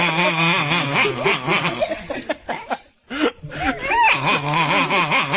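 A person laughing in long pulsing runs, breaking off briefly about three seconds in, then starting again.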